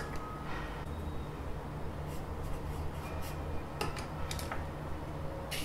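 Caliper being slid and set against the underside of a small laptop: faint rubbing and a few small clicks, the sharpest near the end, over a steady low hum.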